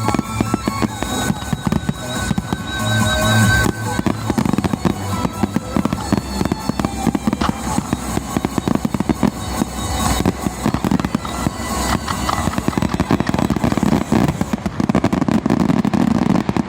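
Finale barrage of aerial firework shells bursting in rapid, overlapping volleys, a dense crackling stream of bangs, with show music playing along through the first few seconds.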